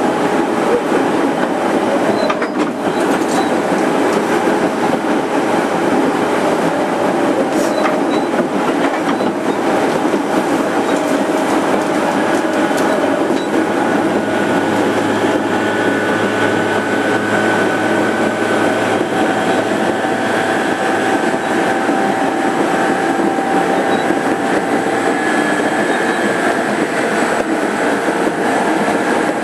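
Running sound inside a JR 205 series 5000-subseries electric motor car (MoHa 205-5022) at speed: a steady rumble of wheels on rail with occasional sharp clicks of the wheels over rail joints. Faint motor tones come and go in the middle of the stretch.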